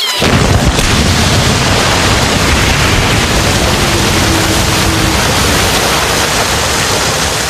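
Loud, steady rush of water gushing out of a water tanker truck, starting abruptly.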